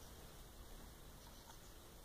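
Near silence with a few faint ticks about a second and a half in, from blue tits pecking rolled oats and tapping their beaks and claws on a plastic feeding bowl.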